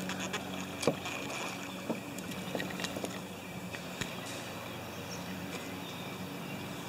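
Kayak paddling: paddle blades dipping and splashing in lake water, with a few short knocks scattered through, over a steady low hum.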